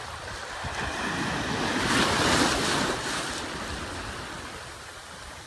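Small waves breaking and washing up onto a sandy beach, the wash swelling to its loudest about two seconds in and then slowly fading.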